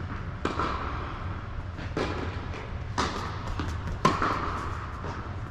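Tennis ball being struck by Yonex rackets and bouncing on an indoor hard court during a rally: four sharp pops about a second apart, each ringing briefly in the hall's echo.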